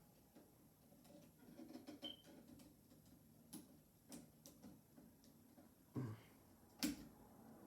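Faint scattered clicks and light taps of an insulated screwdriver and wire being worked at a wall switch, as a wire loop is tightened under a terminal screw, with two louder knocks near the end.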